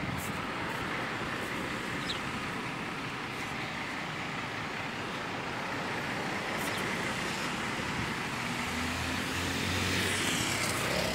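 Steady road traffic noise, with a vehicle engine's low hum rising out of it about eight seconds in.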